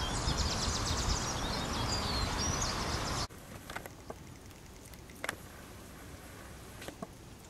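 Birds chirping outdoors: many short, quick chirps and a few whistled glides over a low rumble. About three seconds in it cuts off abruptly to a much quieter background with a few faint ticks.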